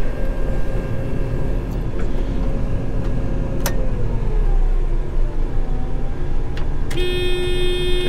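Farm harvest machinery running steadily with a loud low rumble and a high whine that slides down in pitch about four seconds in. There is a sharp click near the middle, and a steady hum starts about seven seconds in.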